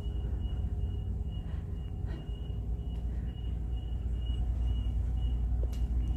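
Steady low rumble of a cruise ship's background hum, with a faint high-pitched chirp repeating evenly about two to three times a second.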